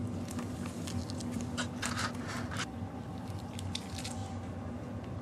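Holland Lop baby rabbits chewing a woven wicker tunnel: a scatter of small dry crunches and clicks, busiest about two seconds in and again near the end.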